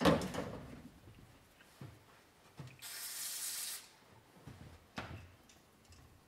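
A knock at the start, then a short hiss from an aerosol cleaner can about three seconds in, lasting just under a second. Light knocks and handling sounds follow as a cloth is worked around the wheel rim.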